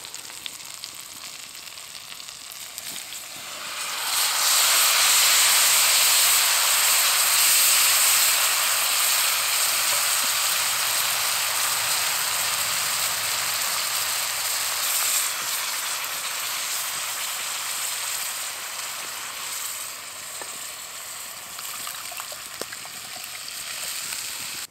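Lamb shank and vegetables frying in a hot cast-iron Dutch oven. About four seconds in, red wine marinade is poured in and the sizzle jumps to a loud, bright hiss, then slowly dies down as the liquid heats.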